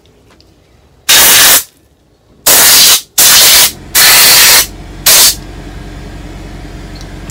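Compressed-air blow gun blasting air through a cleaned outboard carburetor part, in five short, loud hissing bursts about half a second each. A steady low hum continues after the last burst.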